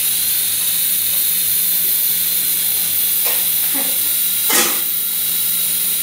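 Steady high-pitched hiss over a low hum, with a few brief knocks about three to four and a half seconds in, the last the loudest.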